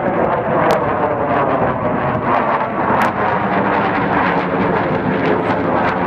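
Jet engines of a B-2 Spirit stealth bomber flying overhead, a steady rumble, with two sharp clicks about a second in and about three seconds in.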